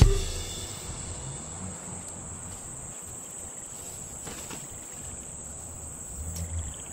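Insects trilling steadily on one high note, with a faint low rustle near the end.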